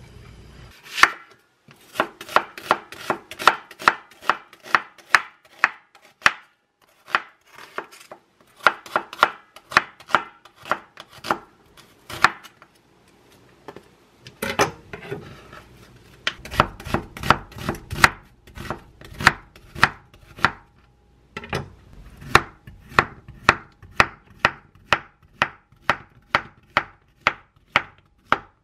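Chef's knife slicing an onion and then Korean zucchini on a wooden cutting board: runs of crisp chops about three a second, stopping and starting several times.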